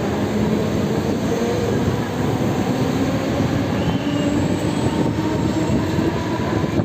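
Mumbai suburban local train, an electric multiple unit, running on the rails: a steady, loud rumble with faint held tones over it.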